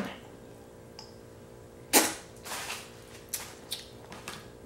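A sharp crack about two seconds in, followed by several lighter clicks and snaps: a cooked crab leg shell being broken and picked apart by hand.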